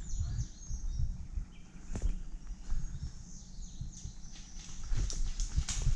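Footsteps of a person walking through dry leaf litter on a forest floor, uneven steps with sharper snaps now and then, with birds chirping faintly in the background.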